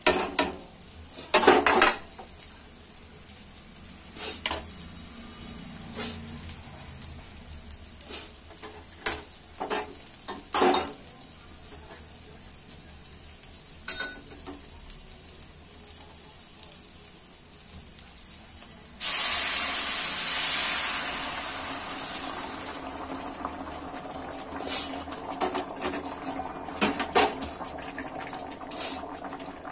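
Mutton and potato masala sizzling faintly in a metal kadai, with a spatula knocking and scraping against the pan several times. About two-thirds of the way through, water poured into the hot masala sets off a sudden loud hiss that slowly dies down into bubbling, with a few more spatula knocks near the end.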